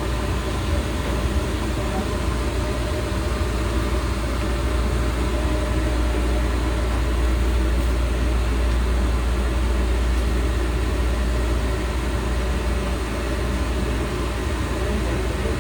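Train running: a steady low rumble with an even hiss of running noise.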